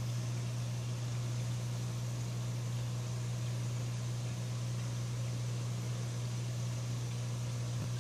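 Steady low electrical hum with an even hiss over it, from the reef aquarium's pumps running.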